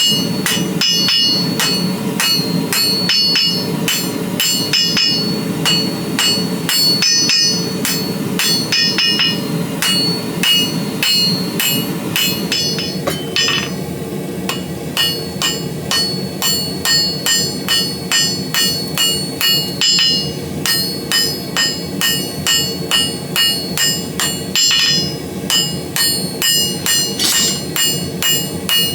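Hammer blows on hot steel at the anvil while forging a BBQ fork: a continuous run of strikes, each with a bright metallic ring, settling into an even beat of about two blows a second around halfway through. A steady low rush runs underneath.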